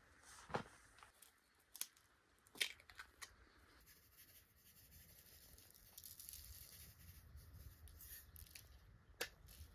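Faint food-preparation handling: a few sharp taps and clicks in the first three seconds, then several seconds of soft crinkling rustle of baking paper and foil on the baking tray, and one more click near the end.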